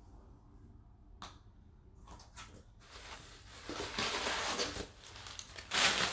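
A cardboard box being handled, its flaps and contents rustling and crinkling, after a light click about a second in. The rustling grows louder toward the end.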